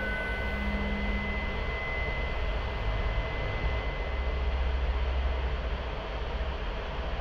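Electronic noise drone: a dense, rumbling hiss over a deep low rumble, like distant aircraft noise, with a thin high steady tone that fades out about halfway through.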